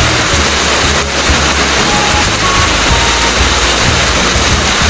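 Heavy rain falling steadily in a downpour. Music with a shifting bass line plays over it.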